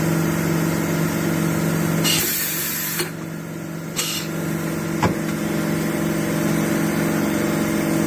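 Mazak Integrex 100 IISY CNC turn-mill centre running with a steady hum. About two seconds in there is a loud hiss lasting about a second, a shorter hiss about four seconds in, and a sharp click about five seconds in.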